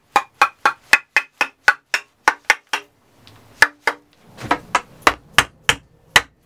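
Rubber mallet tapping an aluminium Tuttle-to-top-plate adapter on a carbon foil mast, shifting and seating it. Quick, even knocks about four a second, a break with a single harder strike about three and a half seconds in, then the tapping resumes at a slightly slower pace.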